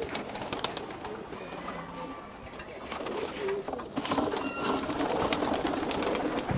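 A flock of domestic pigeons cooing, with a flurry of wing flaps about halfway through as several birds take off. The birds are stirred up by the feed drum being opened.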